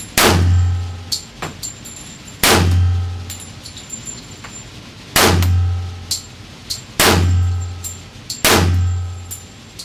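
Pistol shots fired in an indoor shooting range: five loud shots, irregularly spaced about one and a half to two and a half seconds apart, each with an echoing tail, with light metallic clinks between them.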